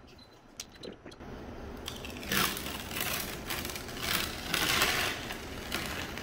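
Oramask 813 adhesive stencil film being peeled off painted plywood: a crackling, noisy peel that starts about two seconds in and swells in several longer pulls.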